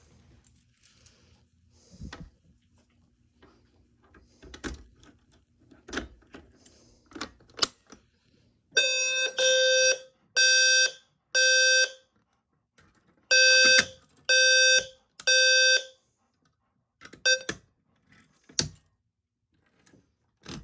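Clicks and knocks of a fire alarm pull station being handled, then a fire alarm horn sounding loud buzzing blasts in two groups with a pause between, the temporal-three evacuation pattern of an activated alarm, before it stops after a few seconds.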